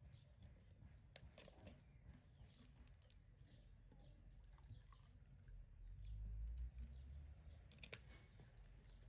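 Near silence with faint clicks and taps of plastic bottles and screw caps being handled while water is poured into a baby feeding bottle, and a low rumble about six seconds in.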